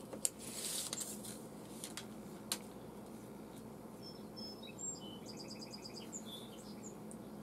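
A couple of light clicks and some rustling as a steel tape measure is handled and pulled out across the pipe. From about four seconds in, faint bird chirps and a quick high trill, over a low steady hum.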